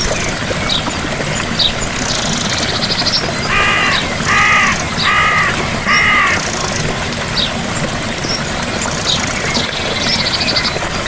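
Steady rush of a gentle waterfall. In the middle a bird calls four times in a row, about one call every two-thirds of a second, while other birds give short chirps and high trills.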